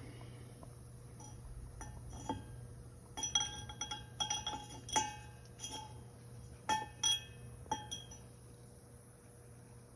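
Metal hub clinking and tapping against the bore of an outboard propeller as the hub with its rubber damper fingers is worked into place. It is a run of sharp clinks, each ringing briefly, bunched in the middle and fading out near the end.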